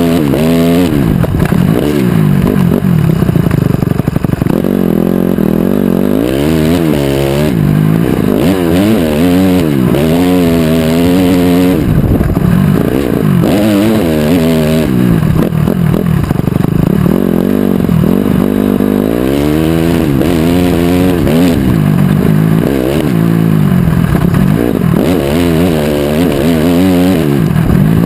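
2008 Honda CRF250R's single-cylinder four-stroke engine revving up and backing off over and over as it is ridden around a motocross track, its pitch climbing and dropping every second or two.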